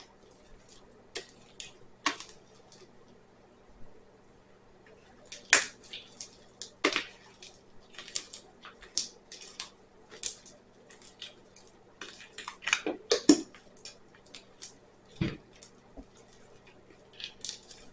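Sticky homemade glue slime being kneaded and pulled apart by hand, giving irregular sharp wet clicks and smacks as it sticks to and peels off the fingers. The slime is still very sticky, not yet fully set.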